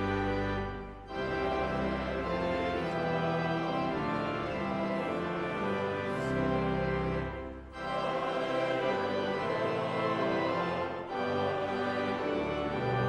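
Organ playing slow, sustained chords, with short breaks between phrases.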